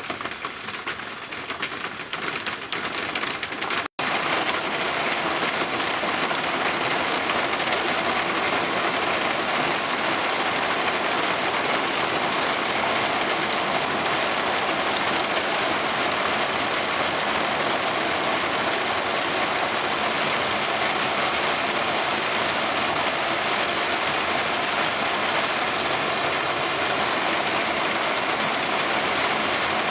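Heavy thunderstorm rain falling steadily. About four seconds in, the sound drops out for a moment, then comes back as a denser, slightly louder downpour.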